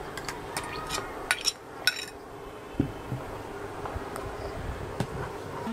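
Metal ladle and ceramic bowl clinking against a stainless steel pot while rice porridge is stirred: a few sharp clinks, the loudest between one and two seconds in, then a couple of softer ones, over a steady low hum.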